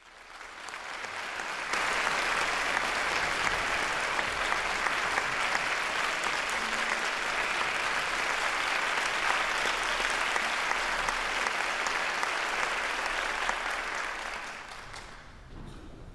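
Audience applauding in a concert hall: steady clapping that builds over the first two seconds and dies away about fifteen seconds in.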